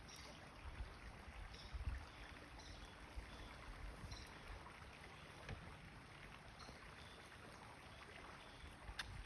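Quiet waterside background: low wind buffeting on the microphone over faint water, with a few faint short high chirps and a single sharp click near the end.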